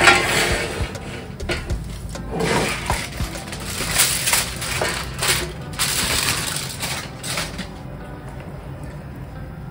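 Aluminium foil crinkling and rustling as it is pulled off a dish, with a few sharp knocks from the dish being handled; the crackling eases off in the last couple of seconds.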